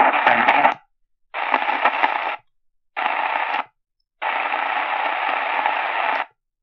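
Sony ICF-SW7600GR portable radio's speaker giving bursts of AM-band static while it is tuned between stations. There are four bursts, each cut off abruptly by about half a second of silence as the tuning steps.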